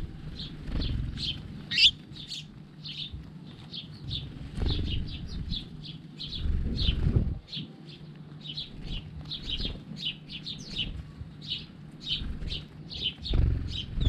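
House sparrows chirping constantly in a feeding flock, with several short, high chirps a second. Now and then there are flurries of wing flapping, and the loudest comes right at the end as the birds take off.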